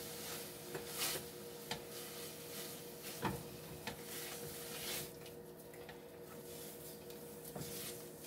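Wooden spoon stirring and scraping a thick flour-and-milk roux in a ceramic frying pan, with a few sharp knocks of the spoon against the pan. The scraping gets quieter about five seconds in.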